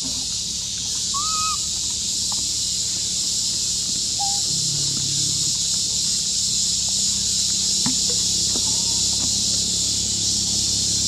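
Outdoor ambience dominated by a steady high-pitched insect drone, with a few short high calls, one about a second in, another about four seconds in and a faint one near the end.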